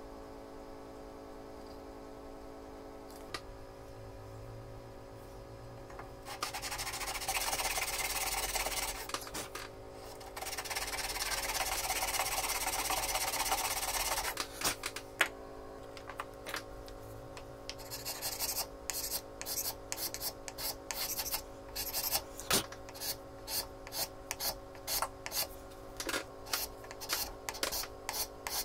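Hand filing of the wood inside a wooden hand plane's throat. After a few seconds of faint hum come two long spells of continuous rasping, then a run of short quick scraping strokes, about one or two a second.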